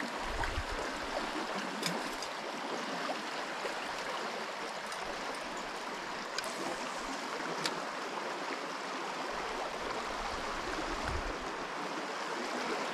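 Steady rush of a shallow river running over and between granite boulders in a small rapid, with a few faint ticks.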